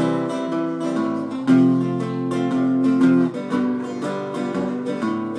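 Acoustic guitar strumming a chord pattern as an instrumental intro, the chords changing every second or two.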